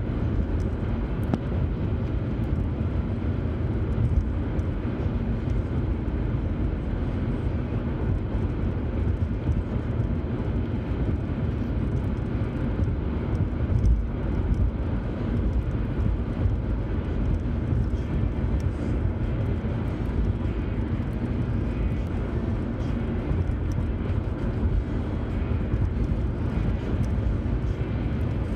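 Car driving at highway speed, heard from inside the cabin: a steady low rumble of tyre, road and engine noise.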